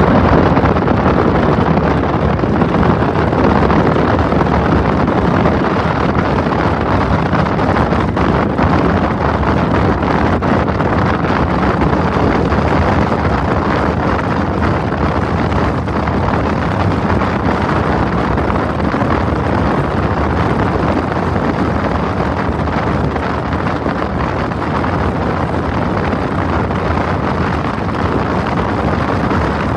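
Steady wind rushing over the microphone mixed with the road noise of a moving vehicle: a loud, even rumble and hiss with no distinct knocks or tones.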